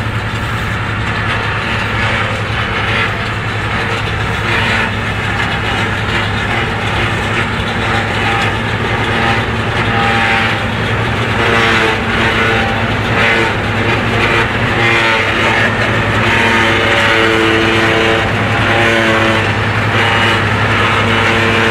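Old self-propelled forage harvester at work, picking up windrowed grass and blowing chopped forage through its spout into a truck driving alongside: a steady, loud mix of engine hum and machinery noise. From about halfway, higher steady tones come and go over it.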